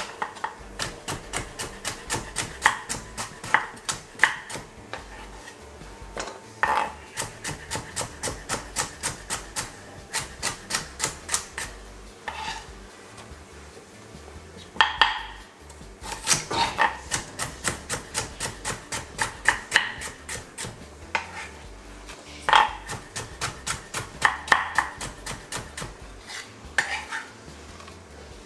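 Chef's knife slicing carrots on a wooden chopping board: runs of quick knife taps on the board, about three to four a second, broken by short pauses, with a few louder knocks about halfway through.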